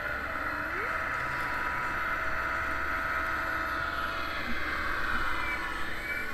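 Radio-controlled construction model machine running: a steady whine with a low hum underneath that dies away about four seconds in.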